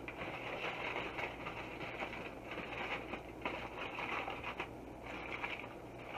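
Aluminium foil crinkling and crackling in uneven bursts as hands press and crimp it around the rim of a steel pot, over a steady low hum.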